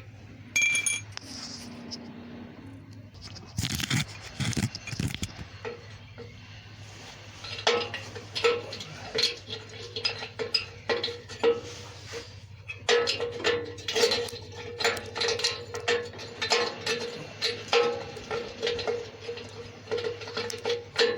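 Hand tools working metal exhaust fittings under a vehicle: metallic clinks and a few heavier knocks, then from about seven seconds in, runs of quick, regular clicking as a fitting is worked.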